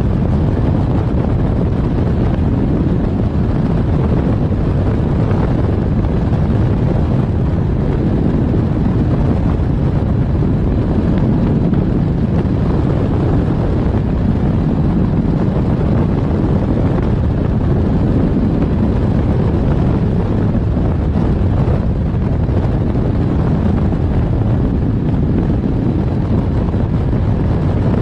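Loud, steady wind rush buffeting the microphone of a camera on a hang glider in flight, a low, even rumble from the airflow over the wing.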